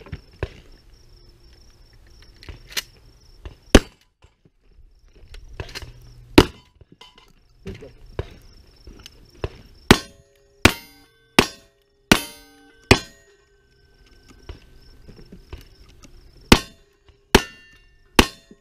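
About ten revolver shots fired one after another at steel plate targets, irregularly spaced with a quicker run in the middle. Some of the hit steel plates ring briefly after the shots.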